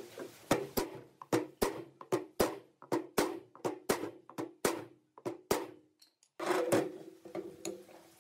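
Repeated hammer blows, about two to three a second, each with a short ringing tone after it. Near the end comes a short noisy burst, then a few lighter taps.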